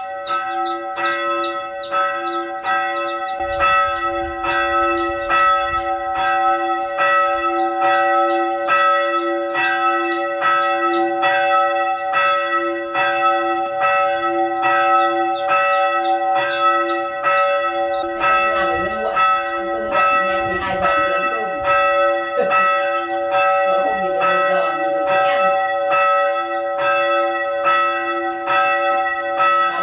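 Bell-like chiming struck in an even rhythm, about two strokes a second, with several tones ringing on between strokes; a few sliding lower tones join in around the middle.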